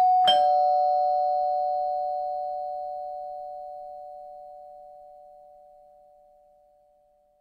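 Doorbell chime striking a two-note ding-dong, the second note lower, both notes ringing on and fading away slowly over several seconds.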